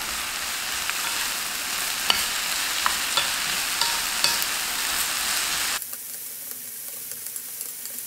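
Cabbage, onion and potato sizzling in oil in a frying pan while a wooden spoon stirs them, with scattered small clicks of the spoon. The sizzle turns suddenly quieter about six seconds in.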